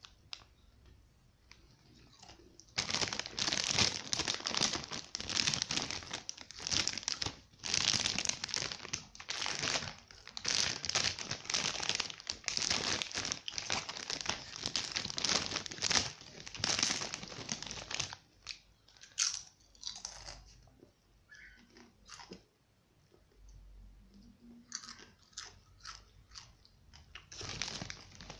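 Crunchy hot-pepper rolled corn chips being bitten and chewed, a dense run of crunching for about fifteen seconds, then only sparse soft crunches. Near the end the chip bag crinkles as a hand goes into it.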